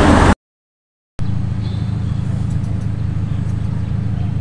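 Outdoor vehicle noise cuts off abruptly for under a second, then a steady low engine drone resumes and holds even.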